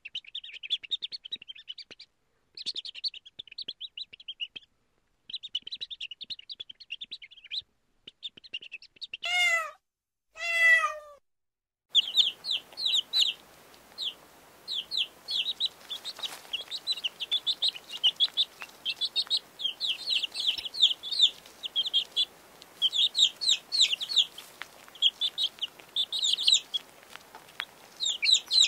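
Young chicks peeping: clusters of rapid, high cheeps, getting denser from about twelve seconds in. Twice, around nine and ten and a half seconds in, a louder, lower and longer call stands out.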